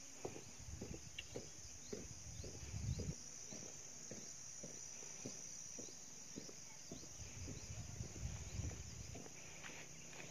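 Footsteps on a dirt path, about two soft steps a second, with low rumbles of wind on the microphone about three seconds in and again near the end.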